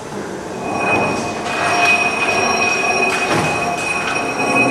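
Workshop machinery running with a steady high-pitched squealing whine that sets in about half a second in, with several metallic clanks and knocks through it.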